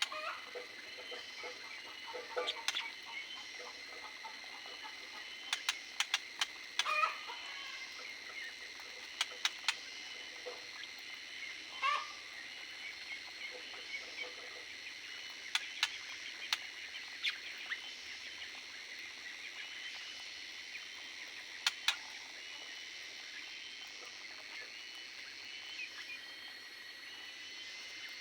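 Aviary birds giving short, scattered calls, mixed with sharp clicks and taps, over a steady high-pitched tone.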